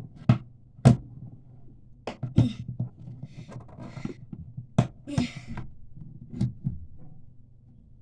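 Slime being squeezed and worked by hand: about seven sharp pops and clicks at irregular intervals, some followed by a short wet squelch.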